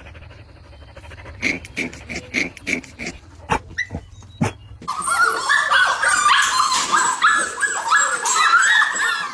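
Puppies whimpering and yipping: a few short, sharp yips in the first half, then from about halfway many overlapping high-pitched whines and cries together.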